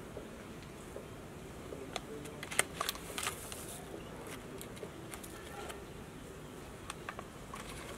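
Yeast sachet crinkling and plastic measuring spoons clicking as instant yeast is spooned out. A cluster of short crinkles and clicks comes about two to three and a half seconds in, with a few more near the end, over a steady background hiss.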